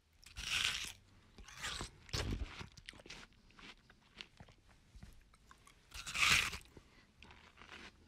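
A person biting into and chewing watermelon. Two loud bites come about half a second in and about six seconds in, with irregular chewing between them and after.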